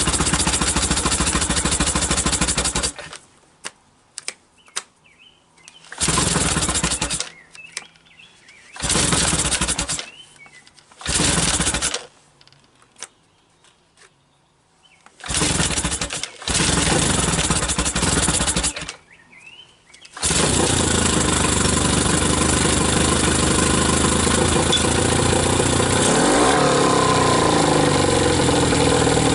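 Mercury 15 hp outboard motor starting after its carburetor's enriching circuit was repaired: it runs for a few seconds, then fires in several short spells of one to two seconds with quiet between, and from about two-thirds of the way in runs steadily, its pitch sliding up and down briefly near the end.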